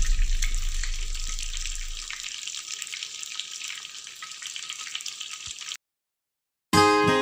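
Hot oil sizzling and crackling around breaded chicken cutlets deep-frying in a stainless steel pan: a steady hiss with many small pops. It fades gradually and cuts off about six seconds in. Acoustic guitar music starts just before the end.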